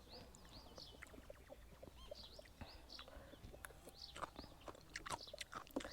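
Small birds chirping with many short, quick calls. Sharp clicks come in thickly during the second half.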